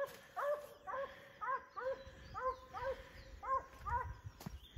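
Foxhound baying in a quick, even run of short barks, each rising and falling in pitch, about two a second.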